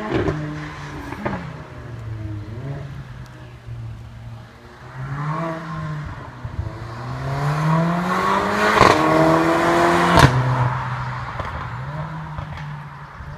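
Mercedes-AMG A45's turbocharged 2.0-litre four-cylinder on its stock exhaust, accelerating away through several gears: the pitch climbs and drops back at each shift. A few sharp cracks and pops from the exhaust come right at the start and, loudest, at about nine and ten seconds in.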